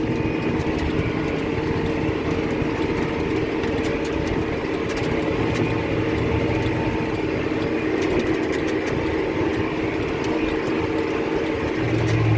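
John Deere tractor's engine running steadily under load while it pulls a Krone 1290 large square baler in the field.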